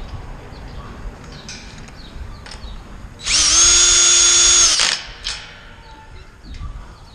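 DeWalt cordless drill with a socket bit running a nut onto a bolt in a kennel panel's metal clamp. Its motor gives one steady whine for about a second and a half, starting about three seconds in, with faint clicks of metal handling around it.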